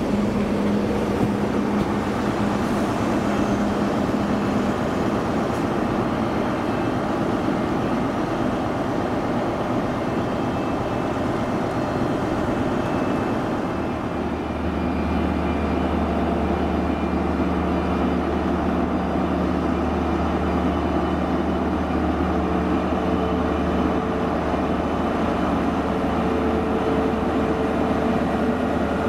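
A ScotRail multiple unit running past along the platform, then a ScotRail HST's Class 43 power car diesel engine running with a strong, steady deep drone from about halfway through, a higher steady tone joining it later.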